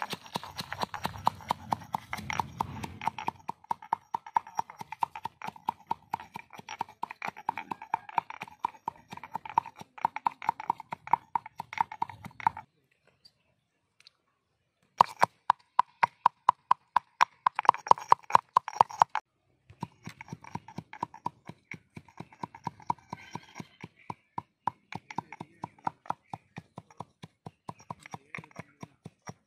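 Stone pestle pounding dried red chillies in a stone mortar: a steady run of sharp knocks, several a second, broken by a short pause about halfway through.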